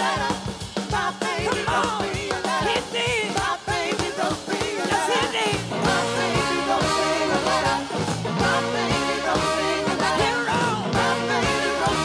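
Live band playing a fast soul-rock number, with drums driving a steady beat, a horn section and a woman singing lead.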